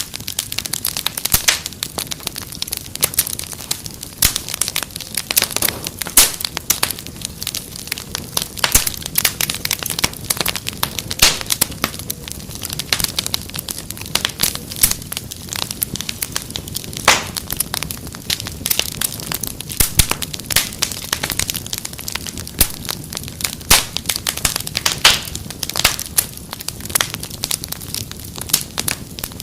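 Wood fire crackling in a fireplace: a steady, irregular stream of small pops and snaps, with a few sharper, louder cracks here and there.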